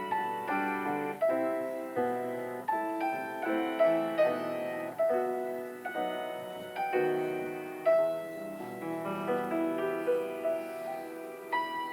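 Solo piano playing a piece: single notes and chords struck a few times a second, each ringing and dying away.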